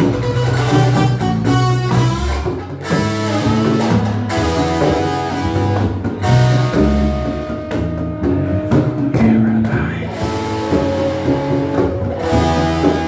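Live band playing an instrumental passage: guitar with trombone and another brass horn over a bass line.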